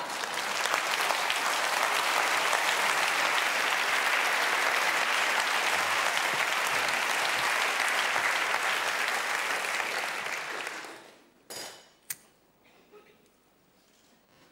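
Studio audience applauding, then the applause dies away about eleven seconds in. Two short clicks follow in the quiet.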